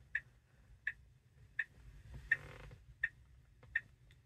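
Regular electronic ticking, six short pitched ticks evenly spaced about 0.7 s apart, in the cabin of a Tesla Model 3 in service mode, with a low steady hum beneath and a brief hiss about two seconds in.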